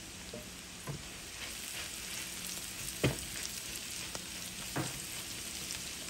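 Diced potatoes, onion and cabbage sizzling steadily in oil in a frying pan, stirred with a spatula. There are a few sharp knocks against the pan, the loudest about three seconds in.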